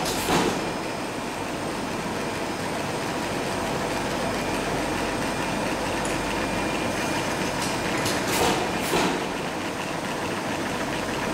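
Butyl rubber sheet extrusion line running: a steady mechanical din from the extruder and line, broken by short, sharp bursts of noise right at the start and twice about eight and nine seconds in.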